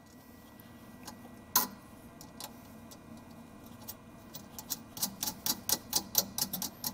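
Small metal clicks as a wire's ring terminal is fitted onto a circuit breaker's threaded stud and a nut is threaded on: a sharp click about a second and a half in, then a quick, irregular run of clicks in the last two seconds or so.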